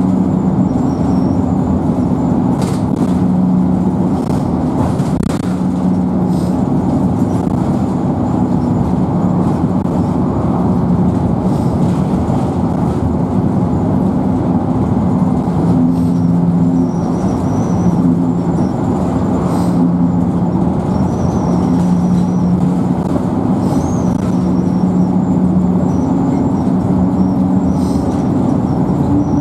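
Dennis Dart single-deck bus under way, heard from inside the saloon: the diesel engine's steady hum over road and tyre noise, its pitch stepping up and down a few times as the bus drives on.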